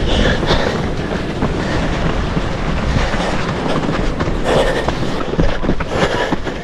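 Wind buffeting the microphone of a camera carried by a runner on a trail, with a steady low rumble and the rhythmic thud and rustle of his running footfalls.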